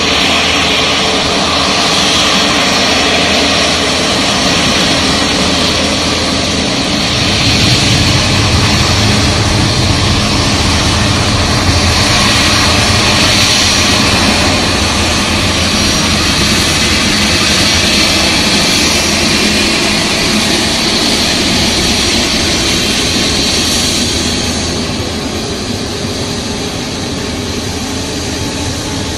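Airbus A350's Rolls-Royce Trent XWB jet engines running at taxi power: a steady rumble with a whine over it, easing off a little near the end.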